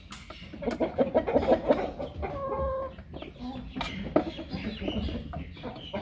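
Light Columbian Brahma chickens clucking, in short irregular calls with one longer held note a little over two seconds in.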